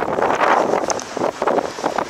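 Gusting wind buffeting the microphone, a noisy rumble that surges and eases.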